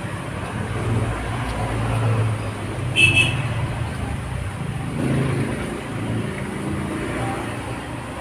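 Steady low rumble of road traffic, with a brief sharp clink about three seconds in.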